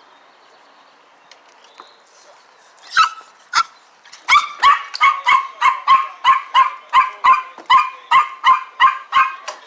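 A dog barking: two barks about three seconds in, then a steady run of quick barks, about three a second, until the end.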